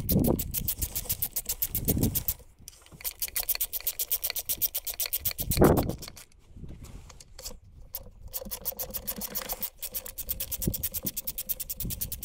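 Socket ratchet clicking in quick, even runs with short pauses as bolts are worked on an outboard engine's lower leg to reach the water-pump impeller, with a dull thump about five and a half seconds in.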